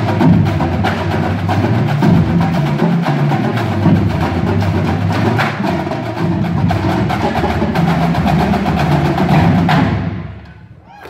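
Marching drumline of snare drums, tenor drums and a row of pitched bass drums playing together, the bass drums stepping between different pitches. The piece ends about ten seconds in and the drums ring away.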